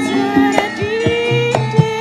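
Javanese gamelan music: stepped pitched notes from metallophones, sharp hand-drum strokes, and a wavering melody line above them.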